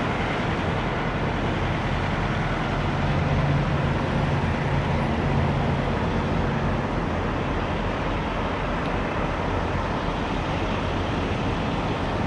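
Steady hum of diesel semi-truck engines running, over a background of road traffic, growing a little louder about three seconds in.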